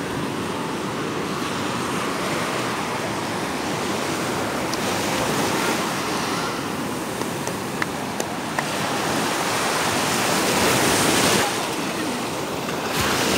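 Ocean surf washing in over a sandy beach's shallows, a steady rush that swells louder as each wave breaks and runs up the sand.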